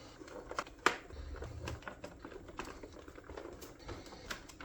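Faint, scattered clicks and taps of hard plastic parts being handled, the loudest about a second in, as a Nerf blaster is put back together.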